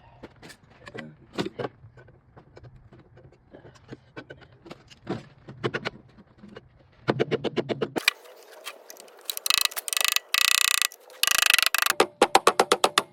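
Metal clicks and clatter from tools taking apart a tankless water heater. About seven seconds in comes a fast run of even clicks, then loud rapid rattling in bursts with short gaps.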